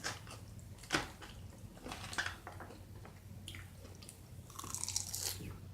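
Close-miked chewing and biting: wet mouth smacks and small crunches, with a longer, louder crunch about five seconds in.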